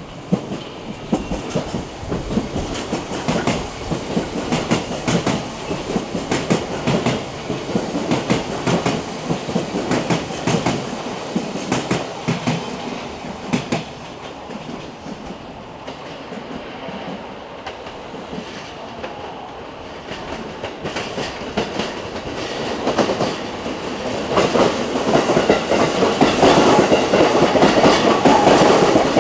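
Electric commuter train running on track, its wheels clattering over rail joints, getting louder toward the end as it comes closer.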